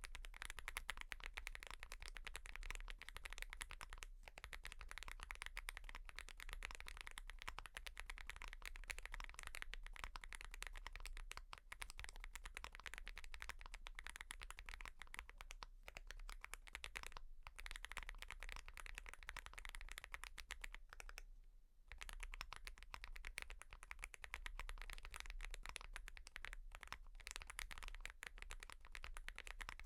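Fast, continuous typing on a mechanical keyboard, a dense run of key clicks with a few brief pauses, the longest about two-thirds of the way through. A steady low hum lies underneath.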